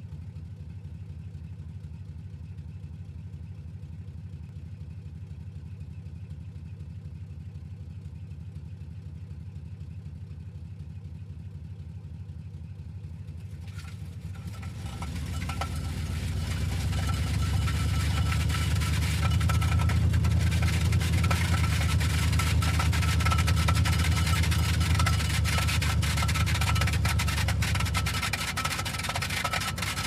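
Car engine idling with a low rumble; about halfway through the engine grows louder as the car drives off, and a loose muffler dragging on the road adds a harsh, continuous scraping with a metallic ring. The engine eases off again near the end while the scraping continues.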